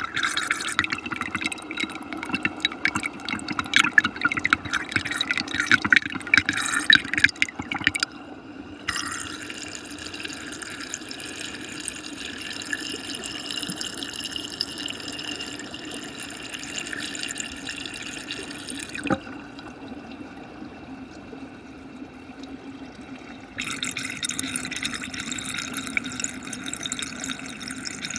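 Fast muddy water swirling in a whirlpool vortex, a continuous churning water noise. It is louder and choppier for the first eight seconds and again near the end, and its character changes abruptly several times.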